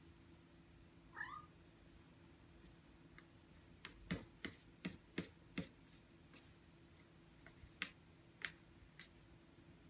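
A six-month-old ragdoll cat gives one short meow about a second in. Then, a few seconds later, its paws tap and knock against a computer monitor's screen in about ten irregular sharp clicks.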